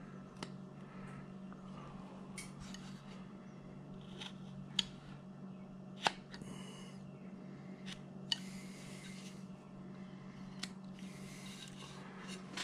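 Carving knife paring thin slices from a wooden figure: faint scraping cuts, each lasting about a second, with a few sharp clicks scattered between them.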